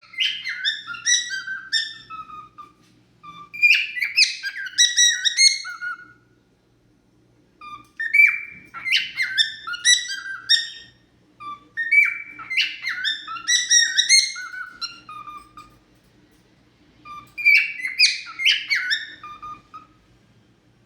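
Male cockatiel singing its natural whistled song: phrases of chirps and gliding whistles, repeated in about five bursts with short pauses between them.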